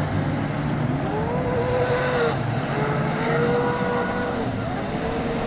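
Motorboat engine running steadily on the water, with three long, slightly wavering high-pitched whines over it, each lasting about a second.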